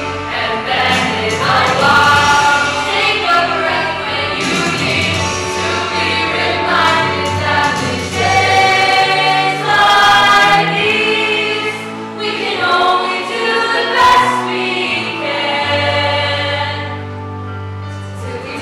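A mixed ensemble of young singers performing a musical-theatre song in harmony, with lead voices at the microphones and the group singing behind them.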